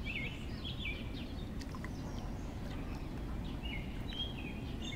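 Small birds chirping in short, repeated sweeping phrases, some gaps between them, over a low steady rumble on the microphone.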